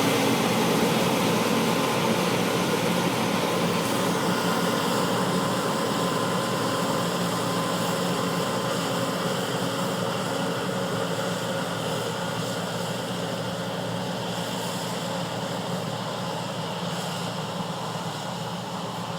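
John Deere 9560 WTS combine harvester running steadily while harvesting corn with a Capello corn header: a steady engine and machinery drone that grows gradually fainter.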